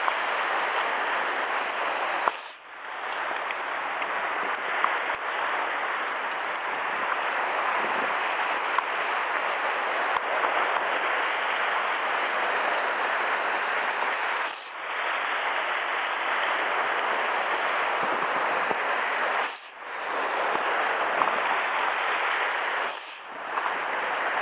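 Sea surf washing and breaking against a rocky shore, a steady rushing hiss that drops away briefly four times.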